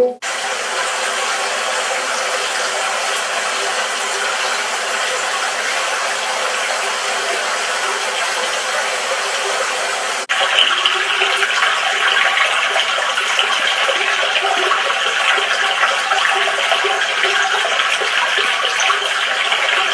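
Running stream water, a steady rushing and babbling. About halfway through it cuts to a different stream that sounds brighter and more splashy, like a small cascade.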